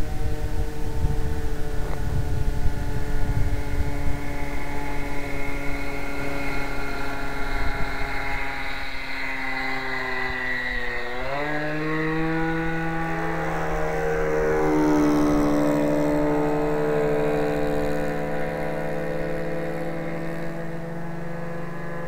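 Radio-control model airplane's motor buzzing steadily in flight. About eleven seconds in its pitch dips sharply as it passes, then rises and holds a higher steady note. Wind rumbles on the microphone through the first several seconds.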